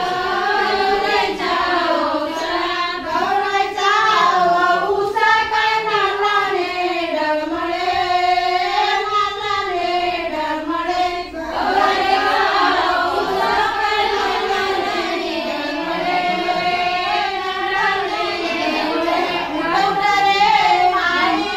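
A group of women singing a traditional Marathi fugadi song in unison, with a brief pause between lines about halfway through.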